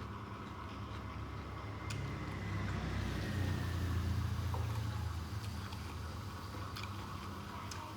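A low rumble of a passing motor vehicle, building to a peak about four seconds in and fading, with a few faint clicks.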